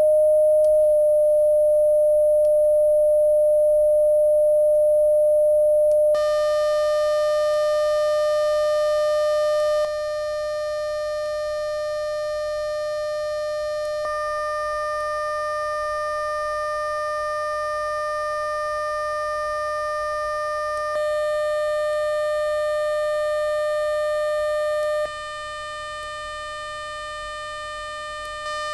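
Synthesized steady tone at about 600 Hz from an iPhone app that plays hand-drawn waveforms: a pure sine tone at first, turning buzzier with overtones about six seconds in. Its tone colour and loudness change in steps several times as the waveform is redrawn, while the pitch holds.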